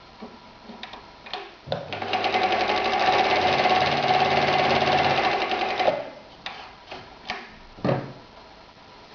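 Husqvarna 2760 sewing machine running at a steady speed for about four seconds, stitching through leather. A few clicks and knocks come just before it starts and after it stops.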